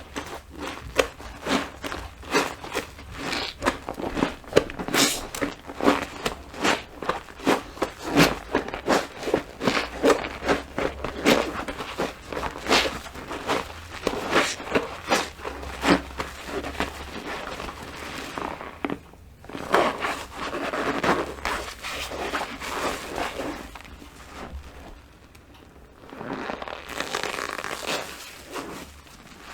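Wet, soapy sponge being squeezed and handled by hand, making a quick run of squelches, two or three a second. Later come longer wet squishing stretches, with a brief lull shortly before the end.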